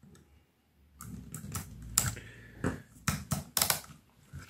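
Sharp clicks and taps of a small screwdriver and fingers working a control knob off a metal radio control panel, with handling knocks from the box. The clicking starts about a second in and comes in uneven bursts.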